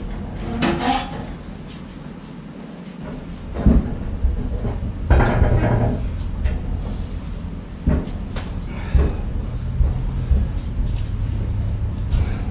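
Home-built steel gantry crane carrying a hanging lathe being pushed on its caster wheels: a steady low rumble of the wheels rolling on the concrete floor from about 4 s in, with several clunks from the frame and load.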